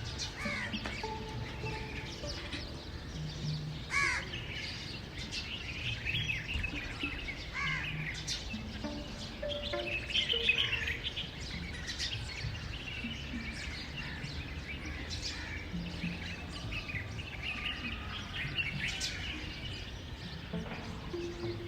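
Several birds chirping and calling, short high calls and trills following one another closely, busiest about halfway through.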